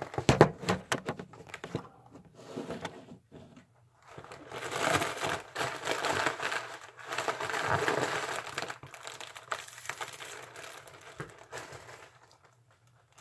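Orange foil (mylar) balloon crinkling and crackling as it is handled and squeezed, in sharp bursts at first, then a long, dense rustle that fades near the end.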